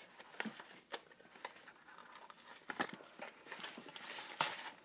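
Faint rustling and light clicks of Pokémon trading cards and their packaging being handled, with a louder rustle about four seconds in as a hand sweeps over the cards.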